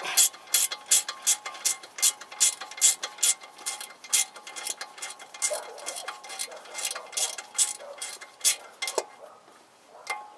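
Ratchet wrench clicking as a bolt on the tie rod end is tightened, about three clicks a second, stopping near the end.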